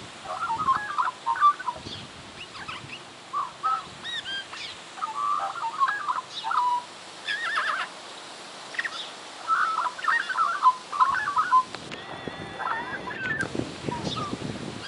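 A magpie singing a string of short warbling, gliding phrases every second or two, with a longer, fuller call about twelve seconds in: its imitation of a horse's whinny.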